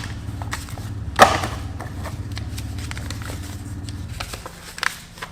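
Handling of the stropping kit's packaging and compound sticks: a sharp click about a second in and lighter clicks and rustles later, over a low steady hum that stops about four seconds in.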